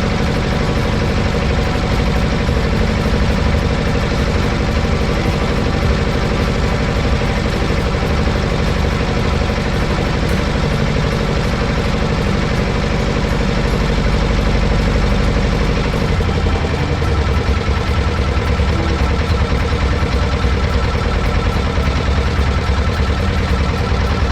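An engine running steadily with a low rumble that deepens about two-thirds of the way through.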